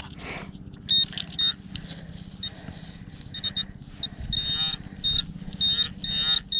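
Metal detector beeping over a buried target: repeated short high-pitched beeps at one pitch, a few held a little longer, over scuffing and rustling in the dirt.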